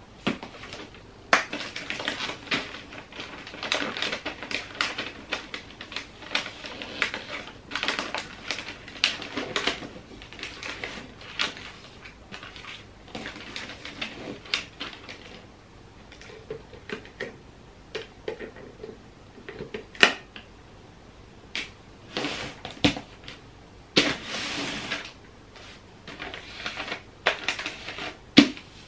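Wrapping paper crinkling and rustling as it is folded and creased around a cardboard box, with many short crackles and taps and one louder sharp snap about two-thirds of the way through.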